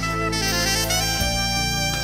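Instrumental music: a melody of held notes changing in steps over a steady bass line.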